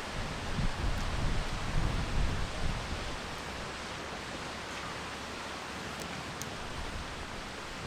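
Strong wind rushing, buffeting the microphone with low rumbling gusts for the first few seconds, then settling into a steady hiss.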